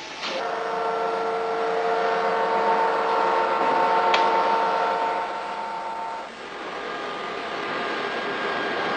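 Workshop machinery running with a steady multi-toned whine over a noisy hum, a sharp click about 4 seconds in; about 6 seconds in the whine drops away and a quieter, different whine carries on.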